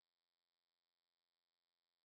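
Near silence: the sound track is essentially empty, with no audible sound.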